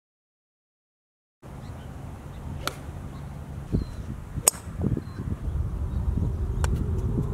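A few sharp clicks of golf clubs striking balls, the loudest about halfway through with a short high ring, over low wind rumble on the microphone. The sound is cut to silence for the first second and a half.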